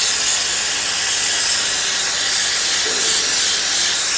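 Compressed-air blow gun hissing steadily, blowing kerosene-washed pump parts clean and dry.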